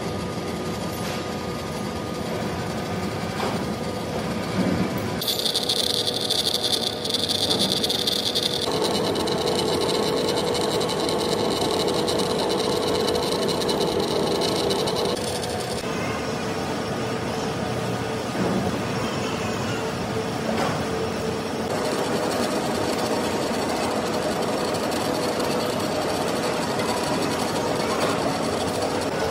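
Large engine lathe running, its cutting tool turning down a big steel shaft: a steady mechanical hum with a high whine that comes in about five seconds in and drops away about halfway through.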